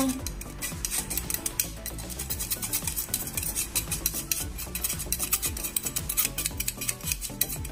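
Metal spoon scraping and tapping around inside a stainless steel mesh sieve, pushing cocoa powder through into a steel mixing bowl: a quick, continuous run of small scratchy clicks. Background music plays underneath.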